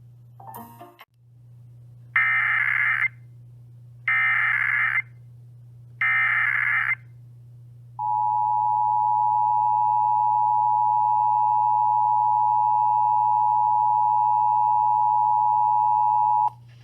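Emergency Alert System broadcast tones: three one-second bursts of digital header data, a second apart, then the two-tone EAS attention signal held steadily for about eight seconds, marking the start of a new alert. A short crackle of noise comes just before the header bursts, over a low steady hum.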